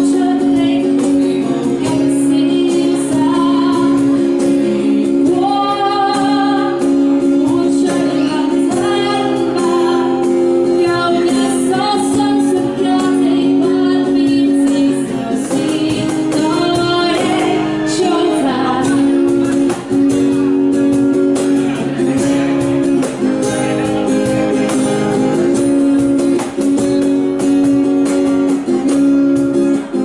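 A woman singing a Cantonese pop song live to strummed acoustic guitar, with a cajon beating out the rhythm.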